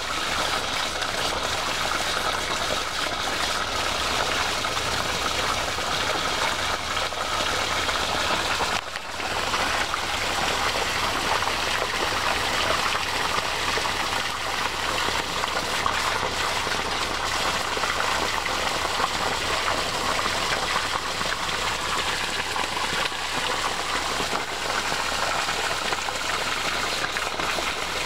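Water gushing steadily from a garden hosepipe, with a brief dip about nine seconds in.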